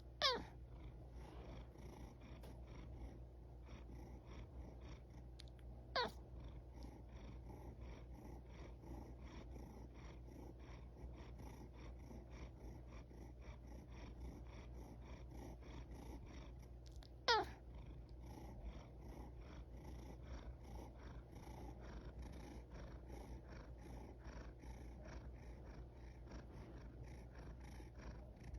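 Domestic cat purring steadily, broken three times by a short, high squeak that slides sharply down in pitch: near the start, about six seconds in and about seventeen seconds in. These are the squeaks a cat gives as it yawns, and they are the loudest sounds.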